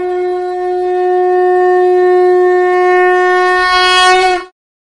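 Conch shell (shankh) blown in one long, steady note. It grows brighter near the end and cuts off abruptly about four and a half seconds in.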